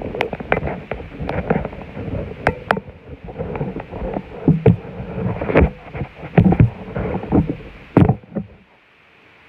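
Irregular scraping and sharp knocking against asphalt roof shingles, which stops abruptly about eight seconds in.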